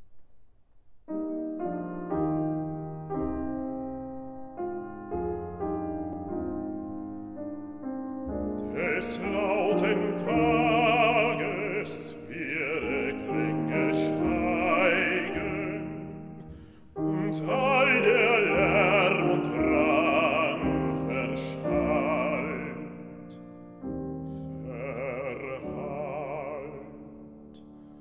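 A Bösendorfer grand piano plays a slow chordal introduction, then a baritone voice enters about eight seconds in and sings a slow German art song with vibrato over the piano accompaniment. The voice breaks off briefly twice between phrases while the piano carries on.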